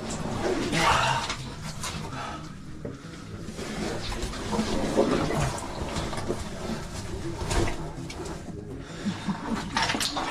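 Water sloshing and splashing as a person crawls through a tight, flooded cave passage, with irregular rustling and knocks of body and gear against rock and water.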